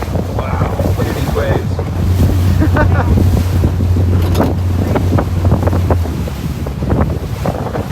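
A tour boat's engine running under heavy wind buffeting the microphone, with sea water around the hull. The low engine drone drops away about six seconds in.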